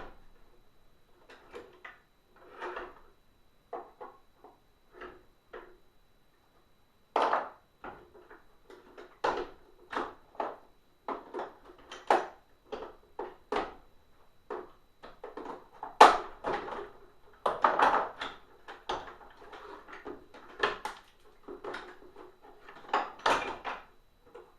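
Hand tools and the plastic parts of a Hoover SteamVac carpet cleaner being worked apart: a long run of irregular clicks, knocks and scrapes, busier and louder from about a quarter of the way in.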